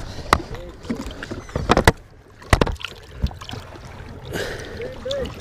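Lake water sloshing and splashing at the side of a boat as a muskellunge is held by the tail in the water, with a few sharp knocks about two seconds in.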